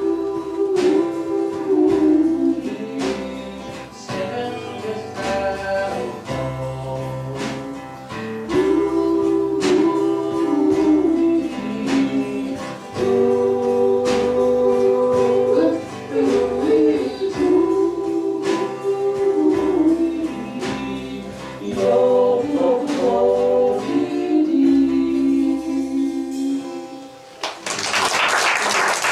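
Small acoustic country band playing the closing bars of a song: strummed guitar under a long, held, wavering melody line with light percussion. The music stops and applause breaks out near the end.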